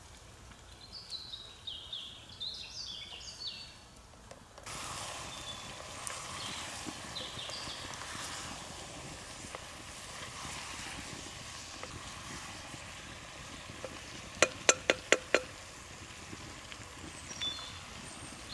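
Small birds singing over a quiet forest background, then from about four seconds in the steady hiss and crackle of an open campfire with chicken and vegetables cooking in a pot hung over it, birds still calling now and then. About two-thirds of the way through, a quick run of five sharp knocks.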